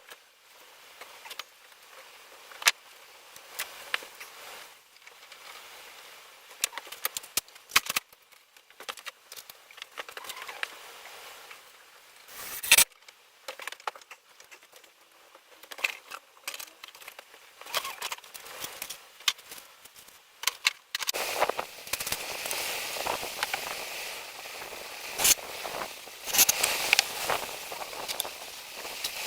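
Irregular sharp clicks, taps and knocks, like parts and tools being handled during installation work. About two-thirds of the way through a steady hiss joins in under the clicks.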